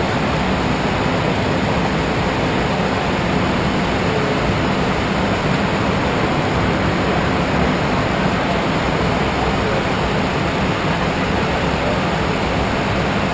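Steady rushing cabin noise in a private jet's cockpit in cruise at 31,000 feet, with a faint low hum underneath.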